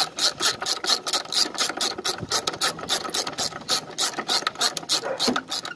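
Socket ratchet wrench being turned on the battery hold-down bolt, its pawl clicking rapidly and evenly, about six clicks a second, as the new car battery is clamped down.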